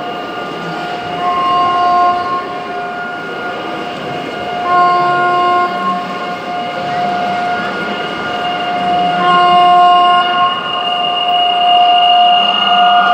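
Gauge 1 model of a Bombardier TRAXX E186 electric locomotive running with a freight train: a steady electric whine made of several held tones, with three horn sounds about a second long each, near the start, about five seconds in and near ten seconds.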